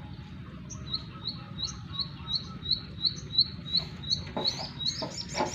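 Plain prinia (ciblek sawah) singing: a steady string of short, sharp chirps, about three a second, each flicking upward in pitch, running into quicker, higher notes near the end.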